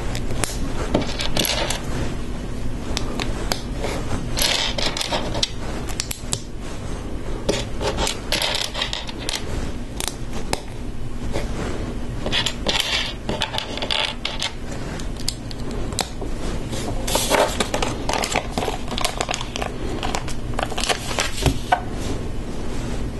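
Plastic LEGO bricks clicking and snapping together in the hands, with small pieces rattling and being shuffled across the tabletop in several short flurries, over a steady low hum.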